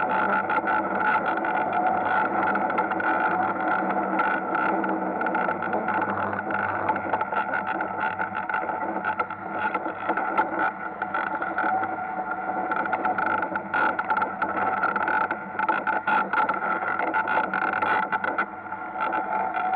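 Ice kart running on an indoor ice track, heard close from on board: a steady whine over continual rattling and scraping from the ice.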